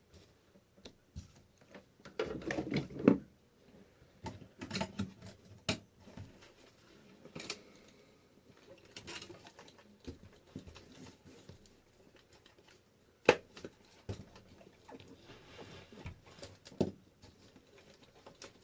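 Intermittent light clicks, taps and rattles of small hard parts being handled and set down on a desk, with a busier clatter about two seconds in and two sharper knocks later on.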